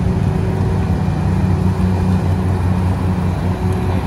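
Volvo motor grader's diesel engine running with a steady low drone as the grader drives past.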